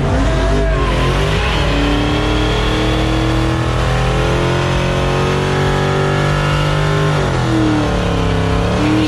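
Dodge Charger's V8 held at high revs through a smoky donut burnout, its rear tyres spinning and squealing. The revs climb in the first second or two, hold steady, drop briefly about seven seconds in, then climb again.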